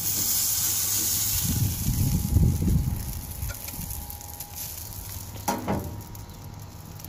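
Ribeye steak sizzling on a hot gas-grill grate as it is lifted off with tongs; the sizzle is strongest in the first few seconds, with a low rumble about two seconds in, then fades.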